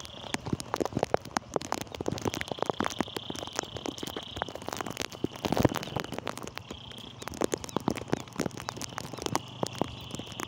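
Rain falling on open wet ground, with many irregular ticks and taps. A high, steady trill from a calling animal comes and goes in stretches of a second or two.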